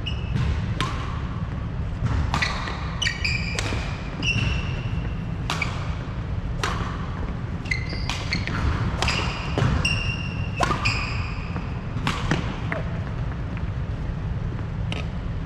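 Badminton rally: sharp racket strikes on the shuttlecock about once a second, with short high squeaks of court shoes on a wooden sports-hall floor and footfalls between them, over a steady low rumble.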